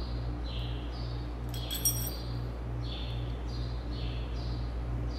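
A single sharp metallic clink of a hand tool on the valve train about two seconds in, over a steady shop hum with a regular high falling squeak about twice a second.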